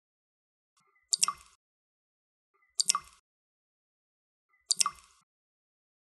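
Water dripping: three single drops about two seconds apart, each a short, sharp plop.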